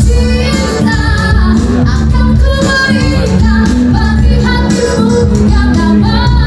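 A woman singing into a microphone, amplified through the hall's sound system, over loud instrumental accompaniment with a heavy bass.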